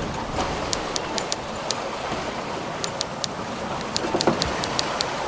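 Steady rush of water and wind around a sailboat under way at sea, with scattered sharp clicks and ticks throughout.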